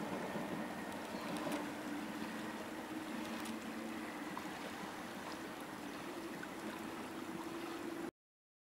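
Royal Mail Class 325 electric mail train running past on a bridge: a steady rush of wheel noise with a humming tone, slowly fading as it moves away, until the sound cuts off abruptly near the end.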